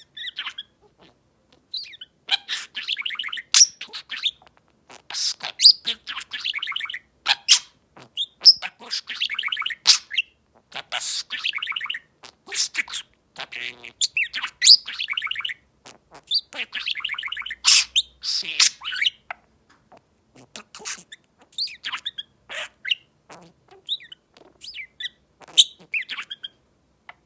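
Pet bird chirping and chattering: quick runs of short, high calls with brief pauses between them.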